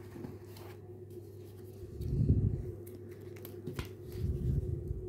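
Faint handling noise of hands moving a small crochet ring and its yarn, with two soft low bumps about two and four seconds in, over a steady low hum.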